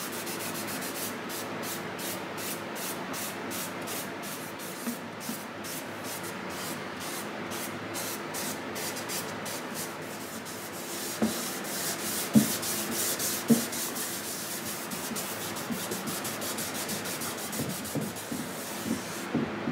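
Cotton pad rubbing a wash coat of shellac onto a rosewood guitar body in quick repeated strokes. Three sharp knocks come about halfway through.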